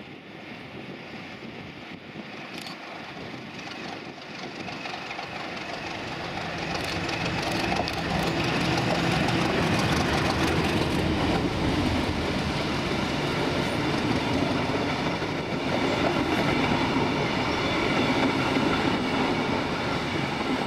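Class 31 diesel locomotive with its English Electric V12 engine running, hauling a rail grinder past on the line, with wheels on the rails. The sound builds over several seconds as the train approaches, then stays loud as it passes.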